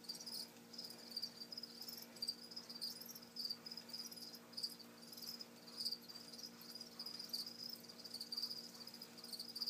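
A cricket chirping steadily in quick, high-pitched pulses, over a faint steady low hum.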